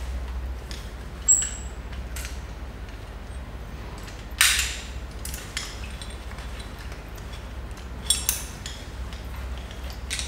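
Metal rope access hardware (carabiners and a hand ascender) clinking and rattling against each other as the gear on a harness is handled. There are three separate bursts of clinks, about a second in, halfway through and near the end, over a steady low hum.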